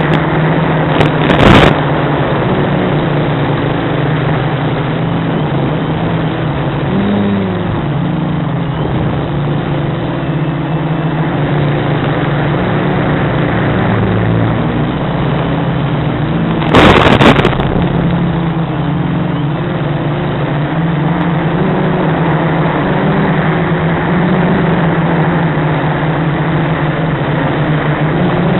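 Quadcopter's Sunnysky brushless motors and propellers buzzing in flight, the pitch wavering up and down as the throttle changes. Two short bursts of crackling noise break in, one about a second and a half in and a longer one just past halfway.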